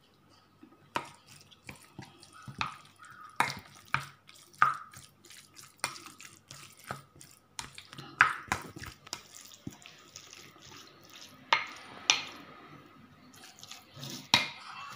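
Plastic spatula stirring a wet minced pork and vegetable filling in a bowl: irregular wet clicks and taps against the bowl, about one or two a second, over a faint steady tone.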